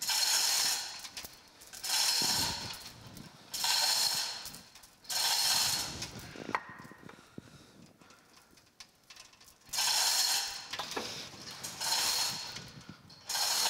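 Chain hoist on a gantry crane lifting a heavy geared shaft in short spurts: about seven bursts, each roughly a second long, with a longer pause in the middle. A single sharp click sounds during the pause.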